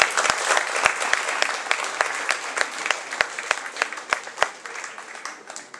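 Audience applauding, dying away toward the end.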